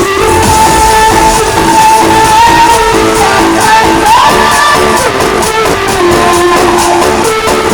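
Loud music played through a large PA sound system during a sound check. A held melody line glides between notes over a dense, steady beat.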